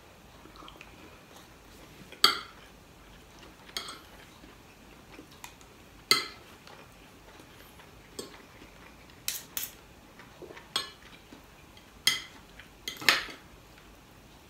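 Metal spoon and fork clinking and scraping against a ceramic dinner plate while eating: scattered sharp clinks, roughly one every second or two, with a couple close together about halfway through.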